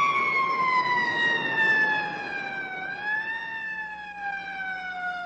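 A siren wailing, one held tone whose pitch sinks slowly, lifts briefly about three seconds in, then sinks again.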